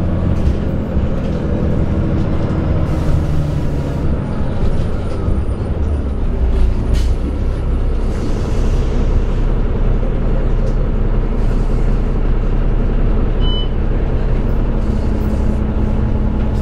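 The Cummins ISM inline-six diesel engine of a 2000 Neoplan AN460A articulated bus, driving through an Allison B500R automatic transmission, running under way: a steady low drone that shifts a little in pitch, with a few short hisses of air.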